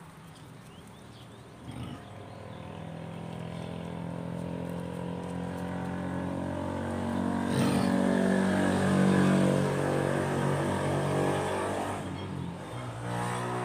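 A motor vehicle engine running, growing louder to a peak about eight to ten seconds in, then dropping away as it passes.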